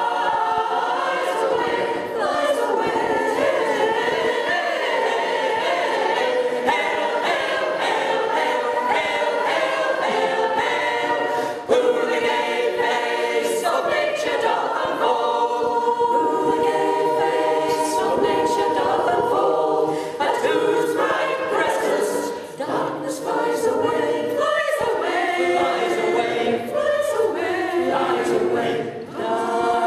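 Mixed-voice choir singing unaccompanied in several parts, phrase after phrase, with brief breaks for breath between phrases.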